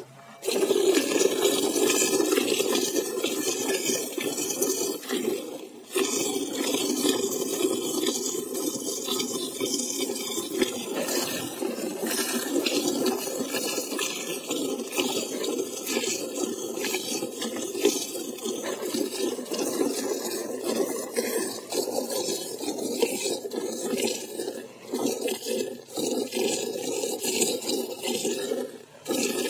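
Buffalo being milked by hand: jets of milk squirting from the teats into a steel pail of frothy milk in a quick, uneven run, with short pauses about six seconds in and just before the end.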